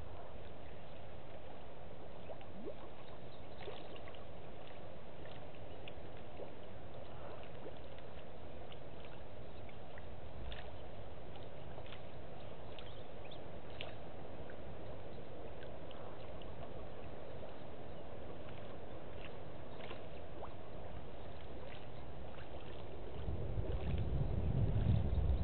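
Outdoor bush ambience: a steady background hiss with scattered faint clicks. Near the end, wind starts buffeting the microphone with a low rumble.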